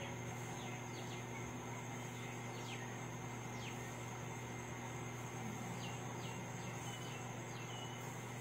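Rural outdoor ambience: birds giving short, high chirps that slide downward, one every second or so, over a steady high insect tone and a low steady hum.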